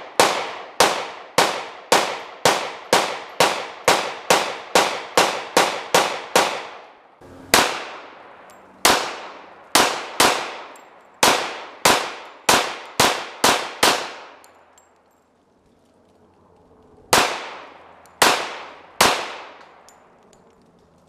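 Semi-automatic pistol fired in rapid strings, about two to three shots a second, each shot trailing off. There is a short break about seven seconds in before a second string, then a lull of a few seconds and three last shots near the end.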